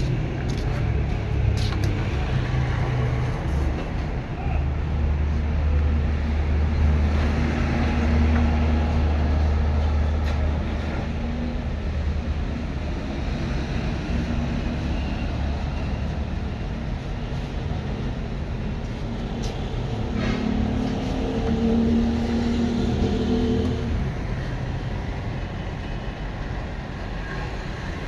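Roadside traffic noise with a nearby vehicle engine running. Its low hum swells a few seconds in and again near the end.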